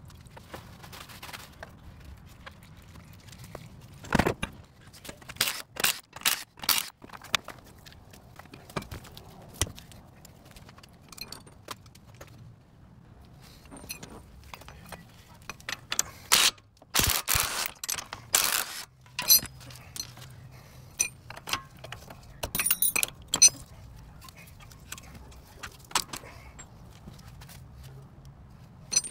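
Metal hand tools clinking and rattling in scattered bursts of sharp clicks, as if tools are being picked up and handled.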